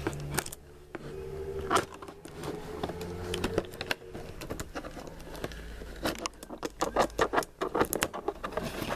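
Scissors snipping and scraping through packing tape and plastic film along the edge of a cardboard box: a run of short clicks and crinkles, coming thick and fast over the last few seconds.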